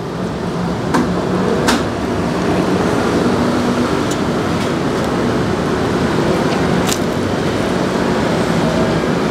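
Steady road traffic noise with engines running, and a few brief sharp clicks.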